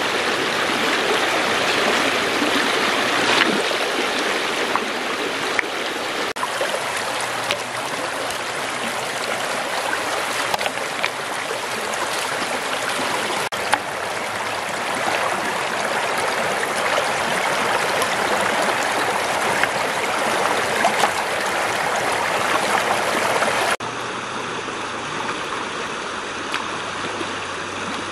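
Shallow stream rushing over stones, a steady babble of running water. About 24 seconds in it drops suddenly to a quieter, more distant flow.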